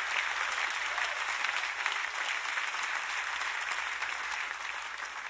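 Congregation applauding steadily, a dense clatter of many hands that thins out near the end.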